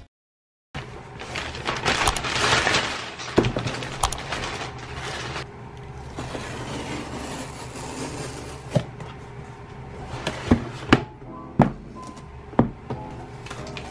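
Cardboard shipping box being opened and a boxed MacBook handled. Dense rustling and scraping of cardboard and packaging fills the first few seconds, then scattered sharp taps and knocks as the boxes are moved and set down.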